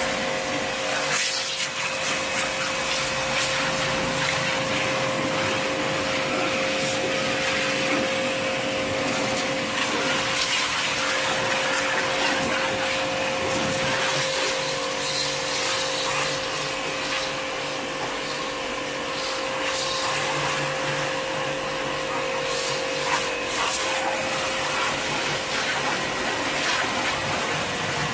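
Hiroma pressure washer running steadily with a constant whine, its jet hissing as it sprays water onto the car's paint and glass.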